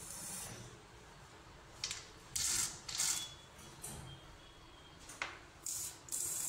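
Handling noise: several short, hissy scrapes and rustles, one after another, with a faint thin whine in the middle.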